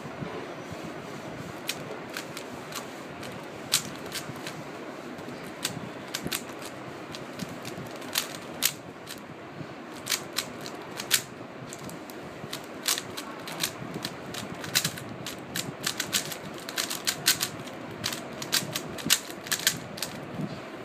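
Plastic 3x3 speed cube clicking and clacking as its layers are turned fast during a timed solve: sparse clicks at first, then quick irregular clusters of turns.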